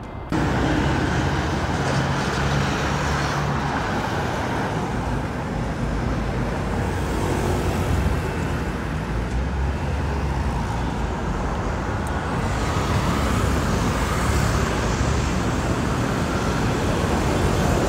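Steady city road traffic: vehicle engines and tyres, starting abruptly, with a low engine hum in the first few seconds.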